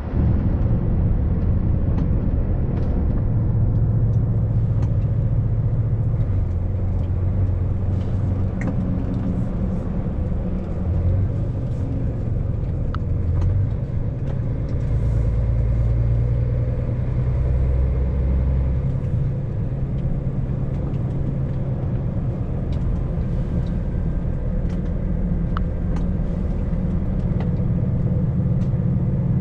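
Vehicle driving on the road: a steady low engine and road rumble whose engine note shifts up and down several times, with scattered light ticks.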